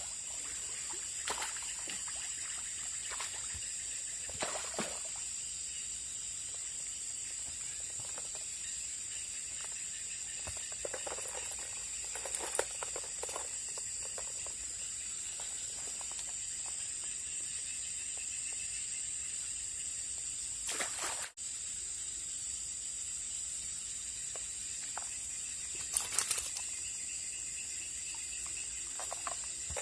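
Steady high-pitched insect chorus in the swamp, with a few short sharp clicks and splashes now and then.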